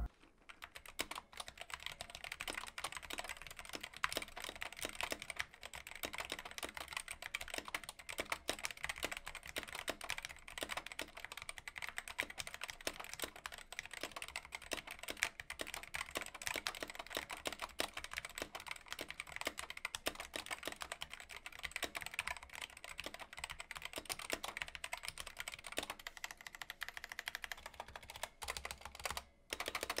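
Typing on an Alpherior Keys AK-TKL keyboard fitted with FlareTech red linear optical switches: a quick sound test of the switches. It is a dense, steady run of key clicks, then a short pause and a few single keystrokes near the end.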